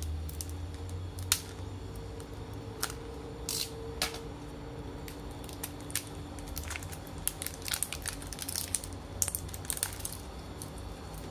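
A utility knife blade cutting and scraping through the plastic shrink-wrap seal on a supplement bottle's cap, with a few sharp clicks. About halfway in, the loosened plastic band crinkles and crackles in quick little snaps as it is peeled off by hand.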